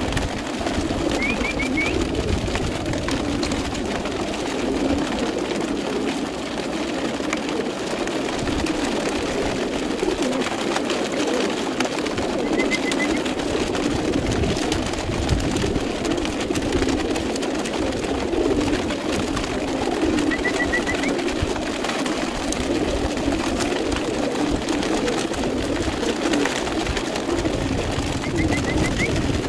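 Many racing pigeons cooing at once in stacked transport crates, a steady dense sound with no break. A few short high chirps come through now and then.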